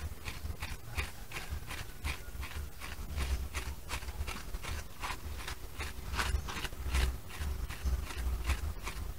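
Rhythmic scraping and rubbing strokes, about three a second, as a potter's hands and a tool work the wet clay wall of a pot on a turntable, joining and smoothing its upper and lower parts. A low rumble runs underneath.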